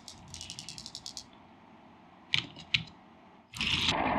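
Rapid clicking of Lego Technic plastic parts being handled, then two sharp plastic knocks. Near the end a loud steady whirring rush sets in as the Lego Technic booster launches a Hot Wheels car down the track.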